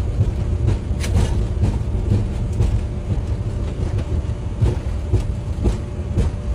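Jet airliner's engines at takeoff thrust during its takeoff roll, heard across the airfield as a steady low rumble.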